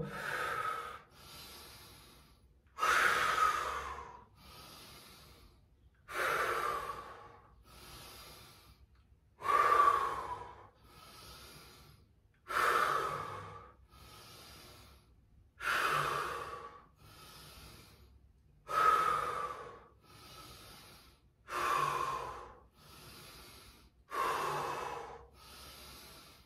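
A person breathing deeply and slowly, catching their breath after a set of dumbbell curls. There is about one breath every three seconds, each with a louder and a softer phase.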